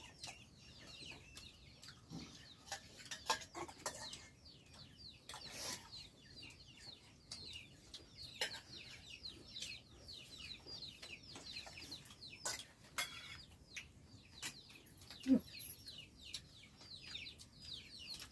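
Chickens cheeping and clucking, a steady stream of short high falling chirps, with scattered sharp clicks like dishes or cutlery being handled.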